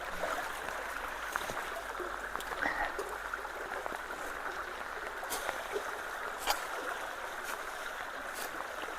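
Steady rush of creek water flowing at a culvert, with a few sharp clicks over the second half.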